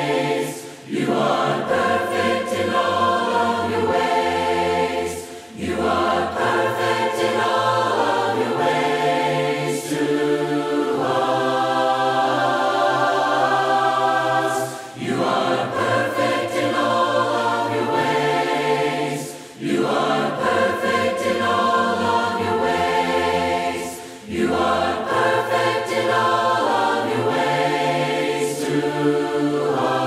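Choir singing a hymn a cappella in four-part harmony, with the words "You are perfect in all of Your ways", in sustained phrases broken by short breaths every few seconds.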